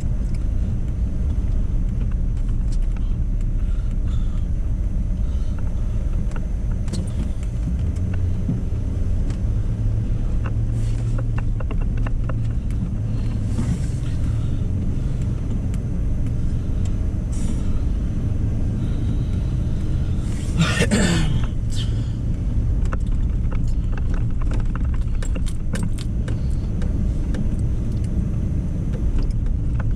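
Pickup truck driving on a snow-covered road, heard from inside the cab: a steady low engine and road rumble with scattered light rattles and clicks over a bumpy surface. About two-thirds of the way through comes one brief, louder rushing sound.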